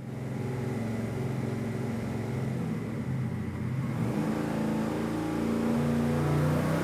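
Twin-turbo 428 cubic inch Ford V8 running on an engine dyno, exhausting through a 3-inch DynoMax Race Bullet straight-through muffler. Its pitch steps up about four seconds in and again near six seconds, and it grows louder as the revs climb.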